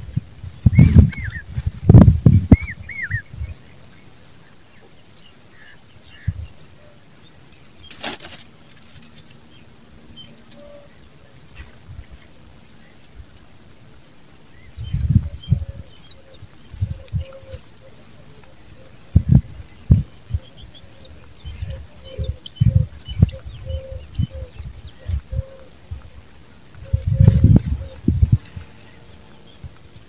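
Pipit nestlings begging: runs of rapid, very high, thin chirps, busiest in the middle. Scattered low thumps come through alongside them.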